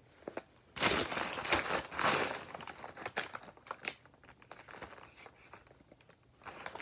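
Takeout food packaging crinkling as it is handled: a loud burst of paper or wrapper crinkling for about two seconds, then quieter scattered rustles.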